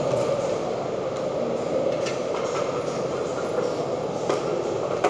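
A steady mechanical rumble with a few light clicks and knocks.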